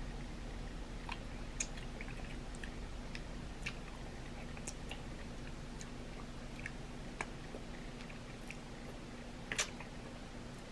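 Faint, irregular small clicks and cracks of crab shell being picked apart by hand, with a sharper crack near the end.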